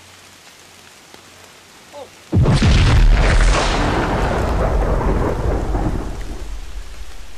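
Movie-style explosion sound: a sudden loud blast about two seconds in, followed by a deep rumble that fades slowly over the next five seconds.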